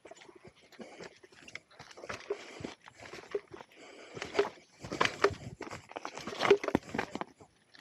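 Irregular crunching and rattling on a rough, stony trail, a jolt about once a second, louder in the second half.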